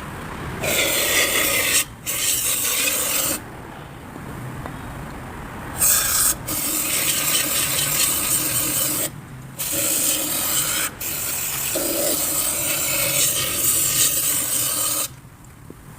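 Harsh rasping noise in several bursts of one to four seconds each, every burst starting and stopping abruptly.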